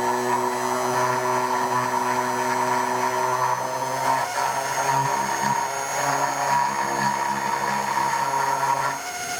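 Dremel rotary tool running steadily with a whine, grinding a V-groove along a small crack in a plastic motorcycle part; its pitch shifts about four seconds in and the sound drops away near the end.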